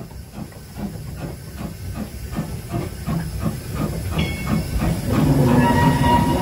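Peckett 0-4-0 saddle-tank steam locomotive chuffing in a steady rhythm of about four beats a second, with steam hissing, as it pulls away. From about four seconds in a high squeal of several pitches from the wheels on the rails joins in and grows louder.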